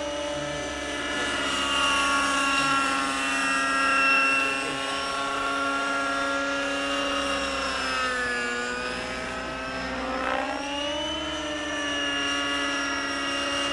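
Radio-controlled model helicopter flying overhead: its small nitro engine and rotors give a steady high-pitched whine. The pitch sags about eight seconds in and climbs back about two seconds later.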